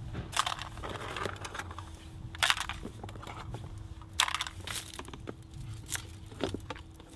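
Scallop shells clattering and crunching against each other in short, irregular bursts as they are handled, over a low rumble of wind.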